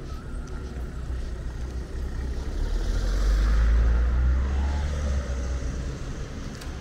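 A motor vehicle passing close by on the street, its low engine rumble swelling to a peak about three to four seconds in and then fading.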